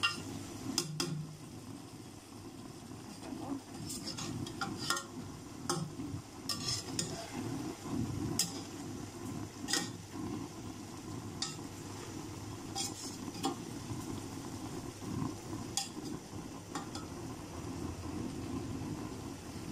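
A spatula stirring chunks of fried vegetables through a sauce in a metal cooking pot. Irregular sharp clicks and scrapes where the spatula knocks the pot's side sound over a steady low background.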